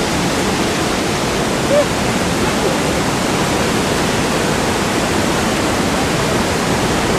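Steady, loud rush of falling water from the Pailón del Diablo waterfall.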